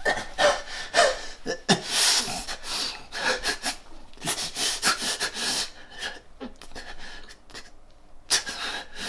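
A man breathing heavily in quick, ragged gasps. The gasps thin out about six seconds in and pick up again near the end.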